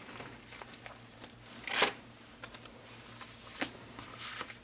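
Paper and card being handled while unpacking an album: rustling and short scrapes of cards and packaging, the loudest about two seconds in.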